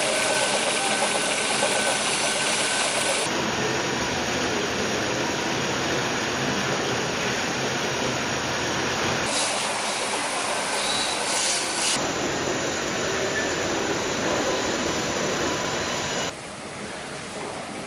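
Circular knitting machine running: a steady mechanical hum and hiss of the spinning cylinder and needles. The sound shifts abruptly a few times and drops quieter near the end.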